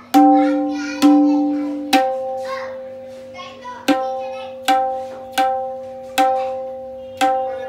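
Treble tabla drum (dayan) of heavy black sheesham wood struck eight times with the fingers, single strokes at uneven spacing. Each stroke rings with one clear pitch and its overtones, fading over about a second; the first two strokes carry an extra lower ring.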